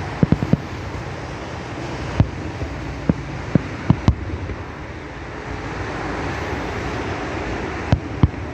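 Steady rush of wind on the microphone mixed with road traffic, broken by scattered sharp pops, a quick cluster of them just after the start and a few more around two to four seconds in and near the end.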